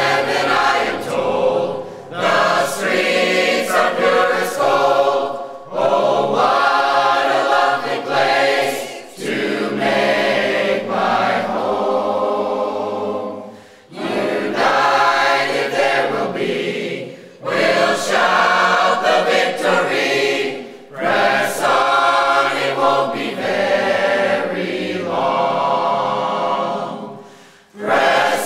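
Mixed church choir of men's and women's voices singing a hymn, line by line with short pauses between phrases.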